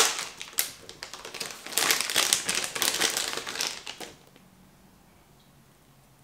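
Thin clear plastic bag crinkling and rustling as it is handled and opened, in uneven bursts that stop suddenly about four seconds in.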